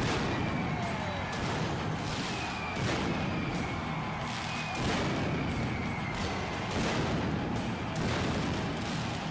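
Arena pyrotechnics firing a string of sharp bangs, about one a second, over a dense hiss of noise, with music underneath.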